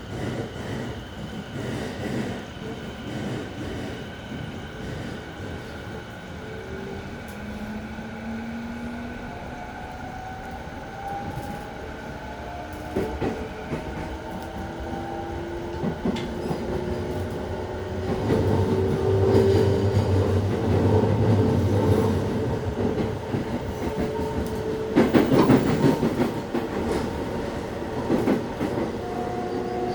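E217 series electric train under way, its traction motors whining in several tones that climb slowly in pitch as it gathers speed, over running rumble. Wheels clatter over rail joints, loudest about three-quarters of the way through.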